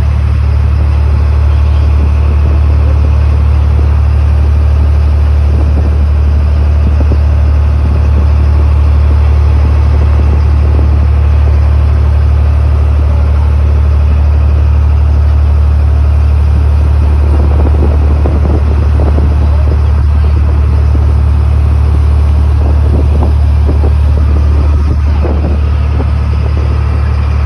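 Boat engine running with a loud, steady low drone, with a rushing noise over it that comes and goes in irregular flutters in the second half.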